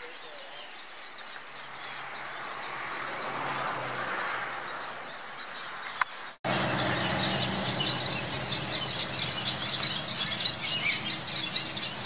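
Cattle egret nesting colony: many chicks' high-pitched squealing calls overlapping in a dense, rapid chatter. It breaks off abruptly about six seconds in and comes back louder.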